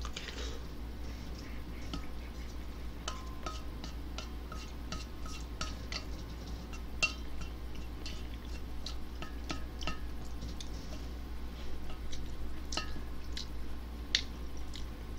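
Chopsticks and a wooden spoon tapping and scraping in a stainless steel pot of ramen while stirring and picking up noodles. There are many light clicks, and some are followed by a faint ring from the pot.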